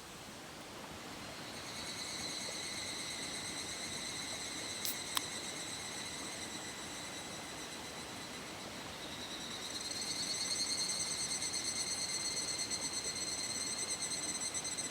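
Insects singing: a high, rapidly pulsing buzz that starts about a second in and grows louder at around ten seconds, over a steady background hiss. Two sharp clicks about five seconds in.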